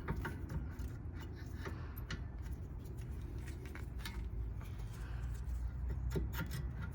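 Scattered light metallic clicks and taps as rear brake caliper parts are handled and fitted back over new brake pads, over a steady low hum.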